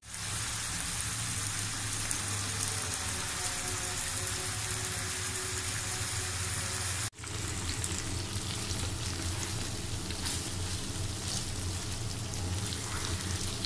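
Marinated beef with onions and oil sizzling steadily in a frying pan over medium heat, with a low steady hum underneath. The sizzle drops out for an instant about seven seconds in, then carries on.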